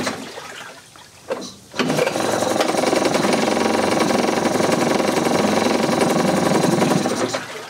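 Evinrude 3.3 hp two-stroke outboard running in a water test tank. It fades out about a second in, gives a brief burst, then runs steadily again from about two seconds until it winds down near the end.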